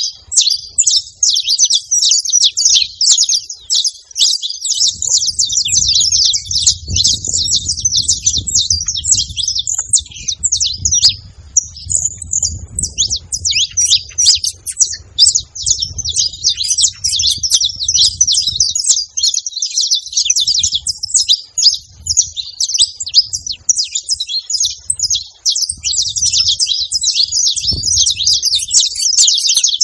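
Several saffron finches singing together: a dense, unbroken stream of rapid high chirps and trills.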